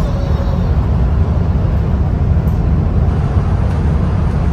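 Steady low rumble of a moving bus's engine and road noise, heard from inside the cabin.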